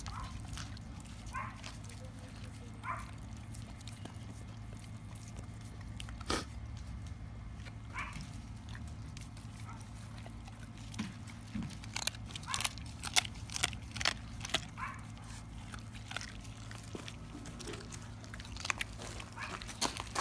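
A young pitbull-boxer mix chewing a raw chicken leg quarter, with wet gnawing and sharp crunches as the bones crack. The crunches come in a dense run about twelve seconds in.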